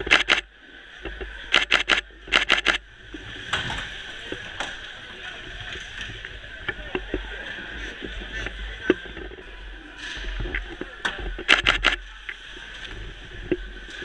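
DSLR camera shutter firing in rapid bursts of several frames each, four bursts in all: one at the start, two close together a couple of seconds in, and one near the middle, over the steady din of a hockey arena.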